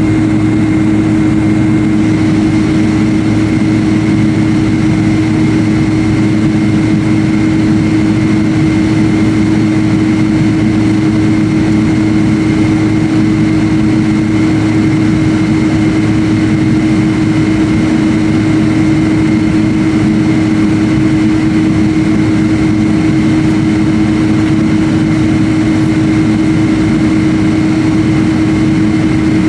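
Jet airliner engines and airflow heard inside the passenger cabin: a steady hum with a constant low drone and a faint high whine, unchanging throughout.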